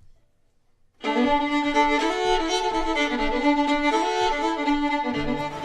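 Fiddle playing a tune, starting about a second in.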